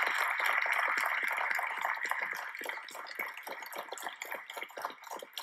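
Applause: a dense patter of many claps that dies away over a few seconds.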